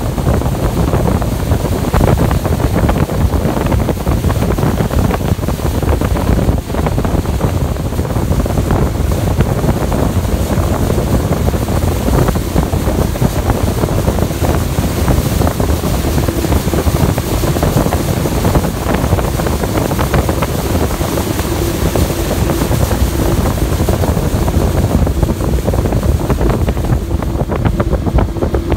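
Bass boat's outboard motor running as the boat travels across the lake, under heavy wind noise on the microphone. A steady engine hum comes through about halfway in and grows plainer near the end.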